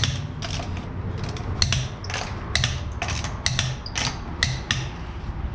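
Torque wrench ratcheting as the wheel's lug nuts are tightened down, giving a run of sharp, irregular clicks, about two or three a second.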